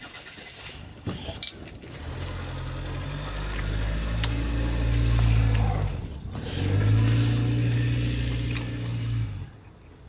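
A car engine running, swelling up twice with a short dip between, over a few light clicks.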